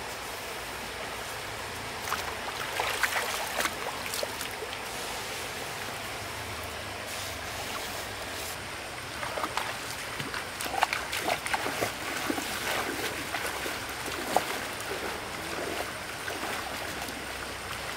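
Shallow stream water running steadily, with irregular splashing about two seconds in and again through the middle of the stretch.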